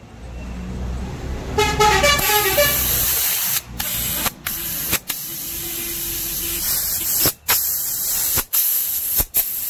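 Compressed air hissing in blasts from an air gun as it blows out a motorcycle fuel pump assembly. The blasts are cut by several short breaks and stop sharply at the end. A brief pitched tone sounds about two seconds in.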